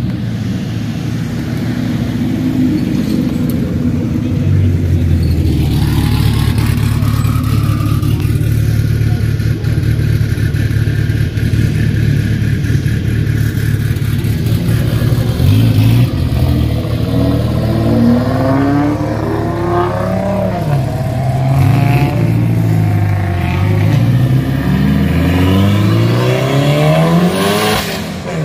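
Sports car engines running at low speed, then the twin-turbo V6 of a Ford GT revved hard several times, its note climbing and dropping repeatedly through the second half.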